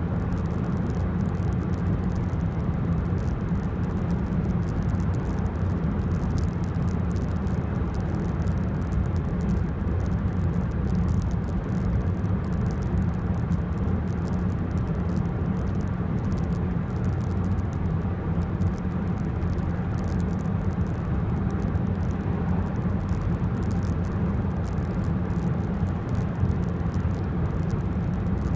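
Cabin noise of a 2005 Peugeot 206 1.4 HDi (8-valve common-rail turbo diesel) at a steady cruise: an even low drone of engine and road noise that holds level throughout.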